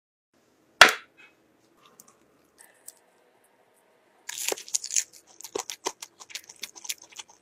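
Crisp baked pastry of a hand pie being broken open by hand, a flaky crackling with many small snaps. A single sharp click comes about a second in.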